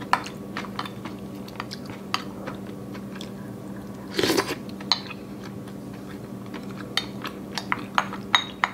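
Close-up eating sounds of a person finishing Korean rice cake soup (tteokguk): wet chewing and mouth clicks, a brief slurp about four seconds in, and wooden chopsticks clicking against a ceramic bowl, more often near the end, over a low steady hum.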